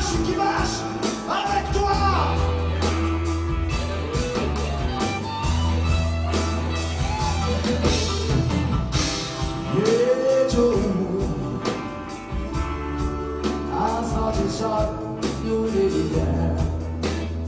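A live rock band playing a slow blues-rock number, with male voices singing over bass, drums and guitar.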